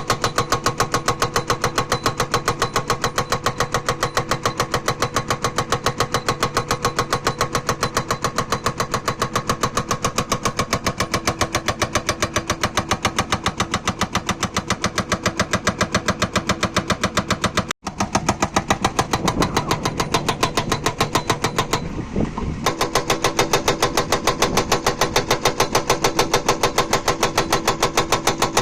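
JCB backhoe loader's hydraulic rock breaker hammering hard stone in fast, even blows over the diesel engine. The hammering breaks off for a few seconds past the middle, then starts again.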